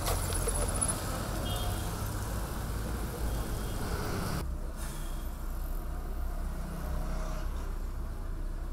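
Road traffic noise: a steady low rumble of motor vehicles on a city street. About four seconds in the sound turns duller, losing its higher part.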